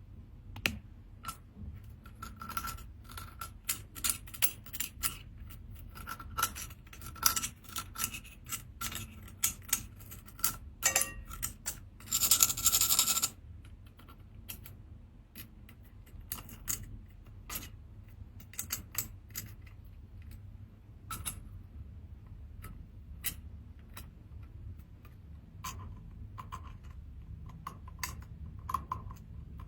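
Seashells being handled and cleaned: hard shells click, tap and scrape against each other and a tool, in a dense run of sharp clicks that thins out after about fourteen seconds. About twelve seconds in there is a second-long burst of rushing, scrubbing noise.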